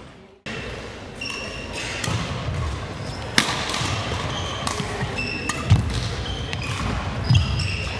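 Badminton rally: about three sharp cracks of rackets hitting the shuttlecock, one to two seconds apart, with short high squeaks of shoes on the wooden court floor and thuds of footsteps. A brief gap of near silence comes right at the start.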